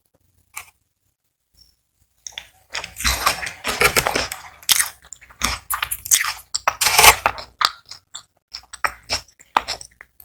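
Crispy fried onion rings being bitten and chewed close to the microphone: after a couple of seconds of near silence, loud crackling crunches set in, then settle into shorter, scattered chewing crunches.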